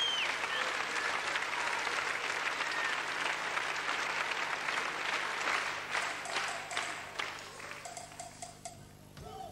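Concert audience applauding in a large hall, a dense wash of clapping that thins out after about six seconds into scattered claps and fades.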